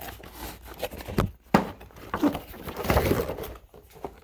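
Toy packaging being handled and pulled at: irregular rustling and scraping, with a sharp knock about a second and a half in.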